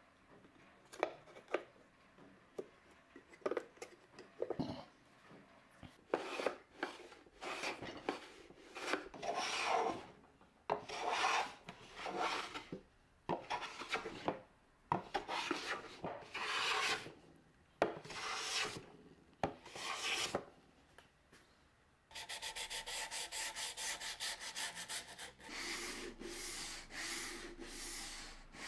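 A Veritas low-angle jack plane taking repeated shaving strokes across a dark hardwood lid panel, each stroke a rasping shave about a second long, after a few light taps at the start as the panel is set in place. For the last few seconds, fast back-and-forth hand sanding rubs along the wooden box edge.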